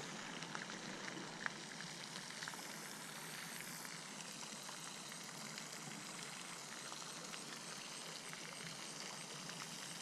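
Faint steady hiss of outdoor background noise, with a few soft clicks in the first few seconds from a bluegill being handled close to the microphone.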